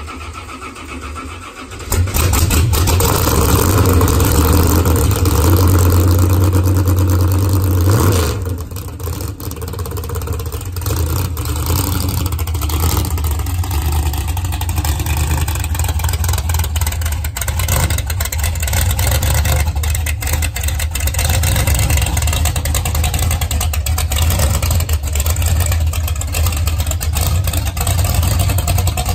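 Engine of a lifted Chevrolet mud truck starting about two seconds in. It runs loud for about six seconds, then drops back to a steady idle.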